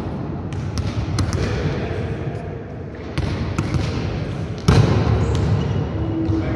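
Volleyballs being hit and bouncing on a sports-hall floor: a scatter of sharp slaps and thuds that echo in the hall, with a loud hit about four and a half seconds in during spiking at the net.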